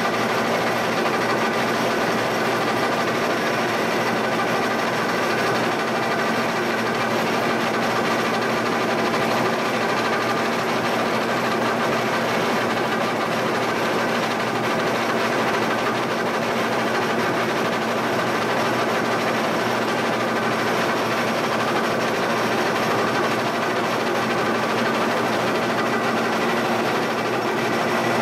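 Giddings & Lewis mill running steadily under power feed: a continuous machine whir with several constant tones and no change in speed.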